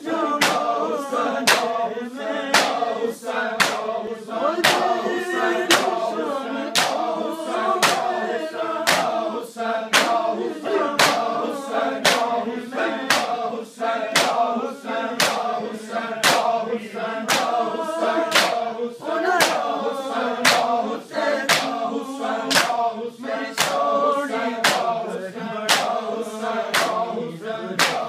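A group of men chanting a mourning noha together while beating their chests in matam, with sharp open-hand slaps on bare chests about twice a second keeping the beat.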